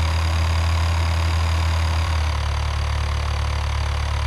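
Engine idling steadily with a low, even drone; the low note shifts slightly a little past two seconds in.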